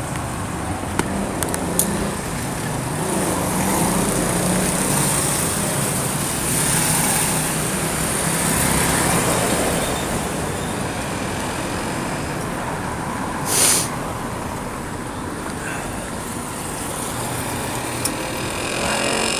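Road traffic of cars and motorbikes passing, with an engine hum from a passing vehicle in the first half and a brief hiss a little past the middle.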